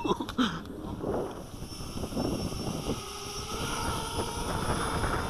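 Wind buffeting the microphone, then about three seconds in a steady whine as the electric motors of a 250-size FPV racing quadcopter start spinning on the ground.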